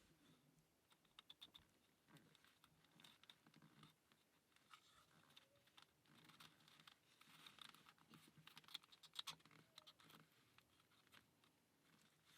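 Faint, scattered light clicks and taps of the small wooden parts of a UGears wooden combination-lock puzzle being handled and turned. The clicks come in irregular clusters, busiest in the second half.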